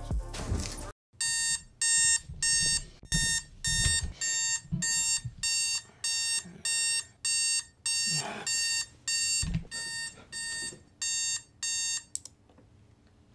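Digital bedside alarm clock sounding its alarm: short, high, evenly spaced beeps, about two a second, starting about a second in and stopping shortly before the end. Faint knocks of handling are heard between the beeps.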